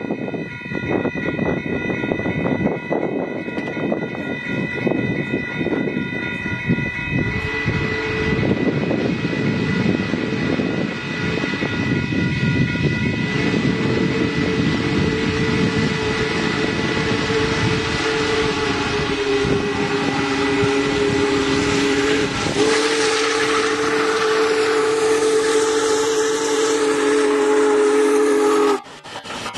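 Union Pacific Big Boy 4014 steam locomotive's chime whistle blowing one long blast, starting about seven seconds in with a brief break near the end, over wind noise. A steady high ringing, fitting a grade crossing bell, is heard in the first part.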